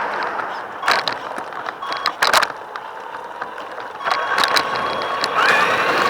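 RC car's motor and gears whining, with several sharp clacks and rattles; the whine drops away in the middle, then returns and rises in pitch near the end as the car speeds up.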